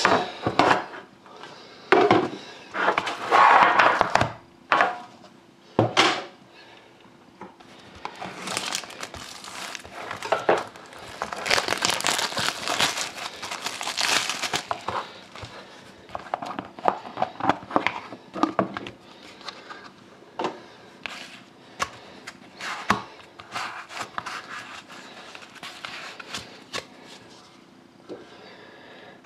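Hands opening a trading-card tin and tearing and crinkling the wrapping of the cards inside: irregular rustling and crackling, with sharp clicks and knocks from the tin and cards being handled. A longer stretch of dense crinkling comes about eight to fifteen seconds in.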